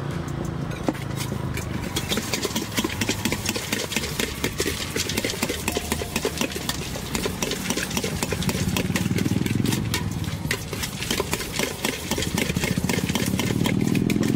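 Fast, constant clinking of a spoon stirring masala and vegetables together for a pineapple chaat. Under it, vehicle engines run steadily in road traffic, swelling twice.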